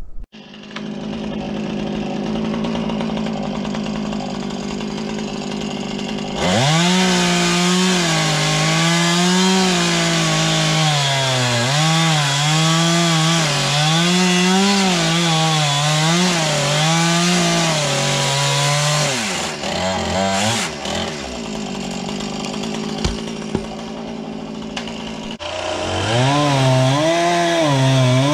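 Chainsaw idling for the first several seconds, then revved hard and cutting through the tops of wooden barn posts, its engine pitch dipping and rising as the chain bites into the wood. About two-thirds of the way through it falls back to idle, then revs up and cuts again near the end.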